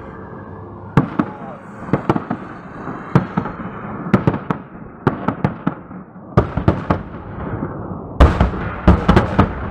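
Fireworks salute: aerial shells bursting in a series of loud bangs, about one a second. A quick cluster of several bangs comes near the end.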